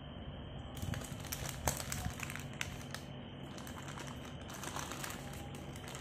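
Baking paper rustling and crinkling as a hand handles the paper lining around a baked sponge cake, in two irregular spells, over a low steady hum.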